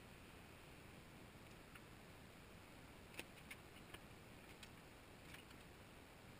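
Near silence: a faint steady hiss with a few light clicks and taps from about three to five and a half seconds in, as the stainless steel frame tubing and tools are handled on the welding table.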